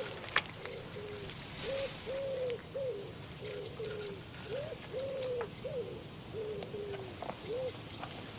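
Dove cooing: a long run of short, soft hooting notes, about two a second, some level and some rising then falling, with faint high chirps of small birds behind them.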